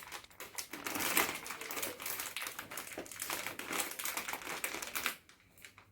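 Plastic snack packet of honey BBQ chips crinkling as it is handled and opened, a dense crackling that stops suddenly about five seconds in.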